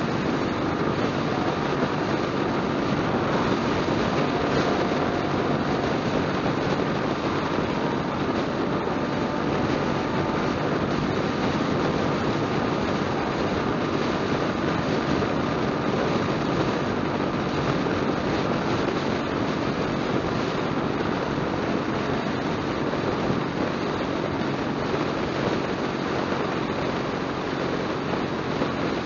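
Motorcycle cruising steadily at highway speed: an even engine drone under a constant rush of wind and road noise.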